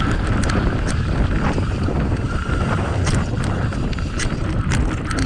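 Wind buffeting a helmet-mounted GoPro's microphone on a fast mountain-bike ride downhill, heavy in the low end, with scattered sharp clicks and rattles from the bike going over bumps.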